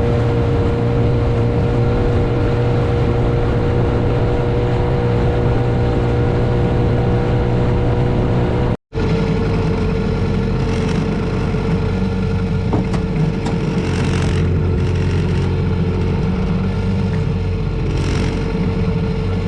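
Outboard motor of a small aluminium tinny running steadily under way, with water and wind noise around it. A split-second gap comes about nine seconds in.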